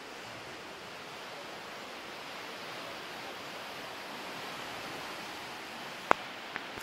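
Steady wash of the sea surging in a rocky sea cave, heard as an even hiss. Near the end, a loud sharp click and a smaller one follow.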